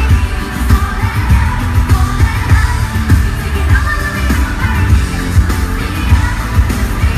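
Live pop music: female vocal group singing over a loud backing track with a heavy, steady bass beat.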